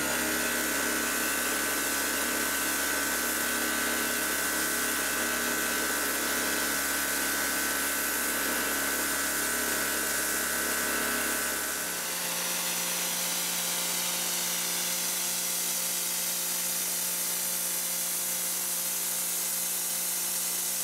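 Pressure washer running, its pump and motor making a steady whine over the hiss of the water jet hitting carpet floor mats. About twelve seconds in the pitch of the whine shifts and a low hum drops away.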